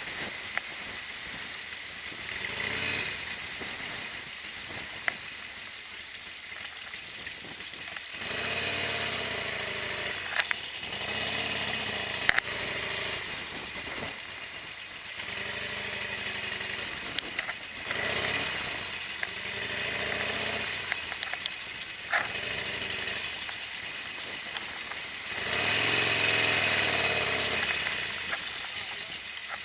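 Harley-Davidson XL1200R Sportster's air-cooled V-twin engine running on the move, growing louder several times as the throttle opens and dropping back between, over wind noise. A few sharp clicks stand out here and there.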